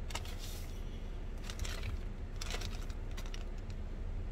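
Plastic mailer packaging rustling and crinkling in a few short spells as it is handled and opened, over a low steady rumble.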